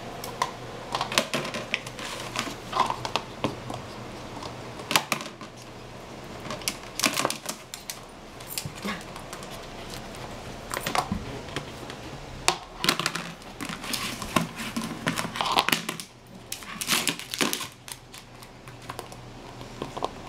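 Irregular clicking and clattering in short clusters, from a maltipoo playing with a frisbee on a hard floor.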